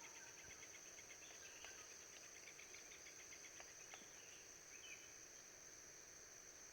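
Faint forest insect chorus: a steady high-pitched drone, with a rapid pulsed chirping trill through the first half and a few faint knocks.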